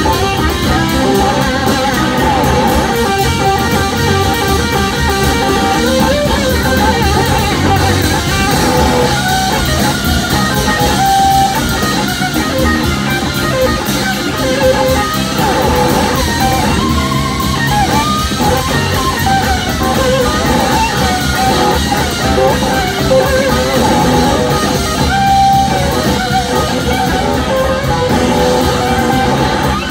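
Live band playing an instrumental passage: electric guitars over a drum kit, with a horn section of saxophone and trumpet, recorded from the audience.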